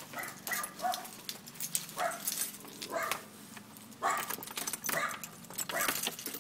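Dogs barking in short calls about once a second behind a door. Keys jangle near the end as a key goes into the deadbolt lock.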